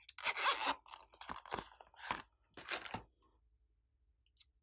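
Zipper on a pink Hello Kitty pouch being pulled open, rasping in four short strokes over the first three seconds.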